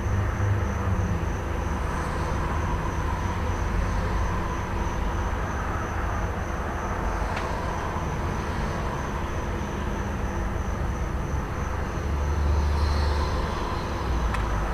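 Idling truck engine humming low and steady under a wash of road traffic, with crickets' high, evenly pulsing trill over it. A faint sharp snap about seven seconds in.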